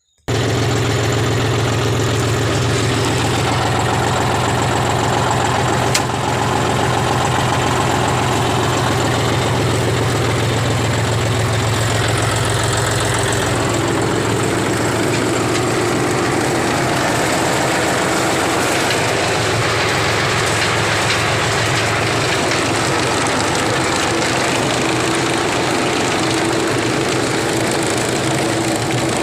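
Tractor running a PTO-driven round straw baler: a loud, steady mechanical drone of the engine with the baler's chain and rollers turning. About halfway through, the low drone drops back and the sound shifts higher.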